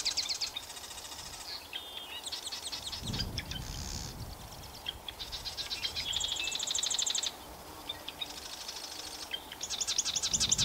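Songbirds singing: a run of high, rapid trilled phrases, each about a second long and repeated with short pauses between them. There is a brief low rumble about three seconds in.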